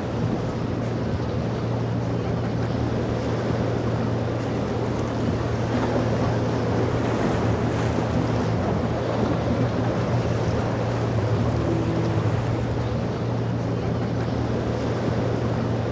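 Motorboat engines running steadily as a low hum, mixed with rushing water and wind noise on the microphone.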